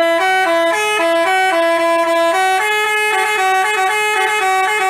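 Telolet basuri multi-tone bus horn playing a melody in short held notes, two tones moving together, without a break. The tune shifts about two and a half seconds in.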